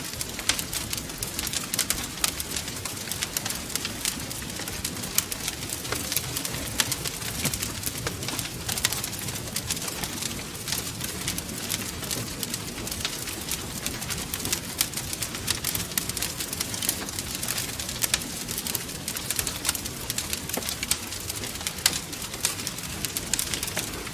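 Wood fire crackling: a constant run of sharp, irregular pops and snaps over the low, steady rush of the flames.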